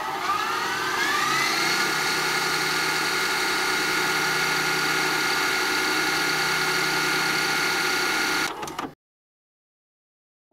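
A whirring, motor-like fast-forward sound effect that rises in pitch over the first second or two and then holds steady on one pitch. It cuts off abruptly about a second and a half before the end.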